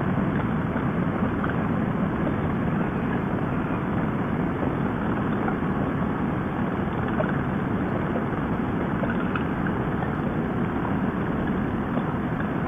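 Steady wind rush and engine drone of a Harley-Davidson bagger motorcycle cruising at highway speed, heard from the rider's seat.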